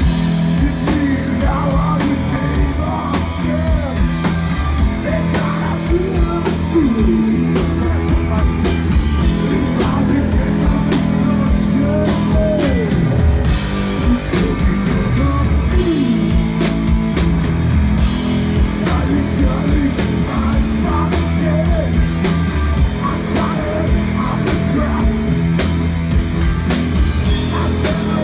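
Rock band playing loud and continuously on electric guitar and drum kit, with gliding, bending guitar or vocal lines over a heavy low end.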